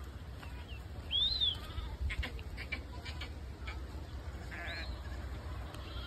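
A herd of goats bleating: a few separate high-pitched bleats, the loudest about a second in and another near the end, over a low steady rumble.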